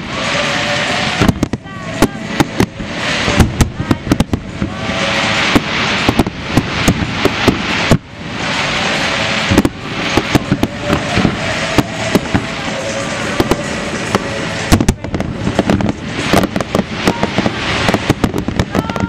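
Fireworks display: many sharp bangs from bursting shells, with stretches of dense crackling between them.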